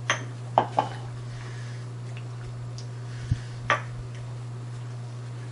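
A few short light clicks and knocks of cups and snack items being handled on a tabletop, over a steady low hum.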